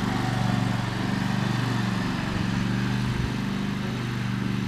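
Riding lawn mower's engine running steadily as it drives across the lawn. Its pitch wavers a little midway, and it grows slightly fainter toward the end as it moves away.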